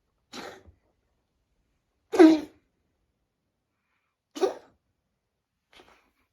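A sick cat coughing four times, about two seconds apart, each cough short; the second is the loudest and the last is faint.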